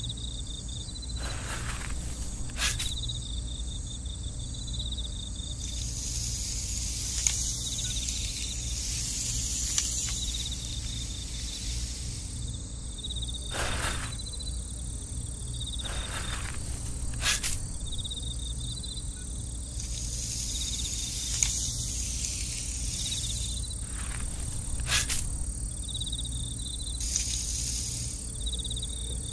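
Insects chirping in a steady, pulsing trill, with occasional sharp clicks and knocks.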